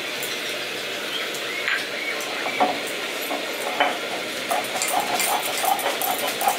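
Poppy seeds being ground by hand on stone: rasping, scraping strokes, with a few sharp knocks early on that settle about halfway into an even rhythm of roughly three strokes a second.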